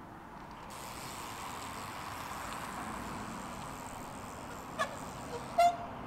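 Steady outdoor background hiss that comes in just under a second in, with a brief faint tone near the end.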